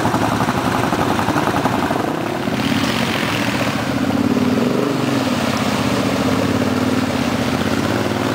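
Quad bike (ATV) engines running; from about two seconds in, one quad's engine revs up and down as it drives through a stream, with water splashing.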